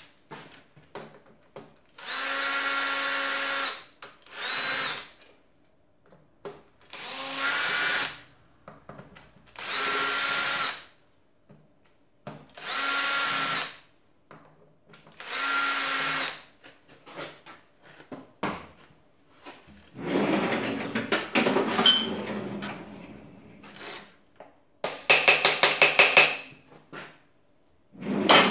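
Cordless drill/driver backing out the screws of an engine's camshaft cover, its motor whining in about six short bursts of one to two seconds each. Later comes a clatter and a quick run of clicks.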